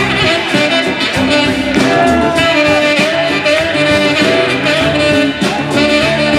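Live band playing an instrumental passage of a reggae-rock song: saxophone lines over guitars and drums.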